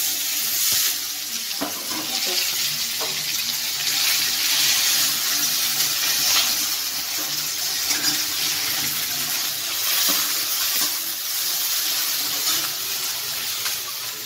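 Food sizzling steadily in hot oil in a wok, with a few light knocks of a utensil against the pan.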